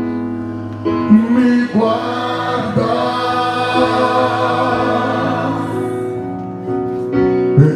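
Gospel worship music: a group of voices singing long held notes over a steady backing, a slow Portuguese-language congregational song.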